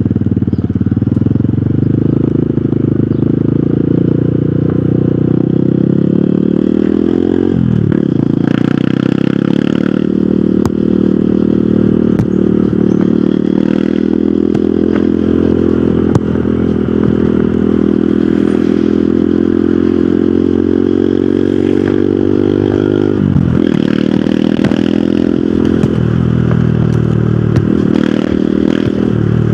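Hero Hunk's single-cylinder motorcycle engine running under way, its pitch climbing steadily and then dropping sharply at gear changes about seven seconds in and again near the end.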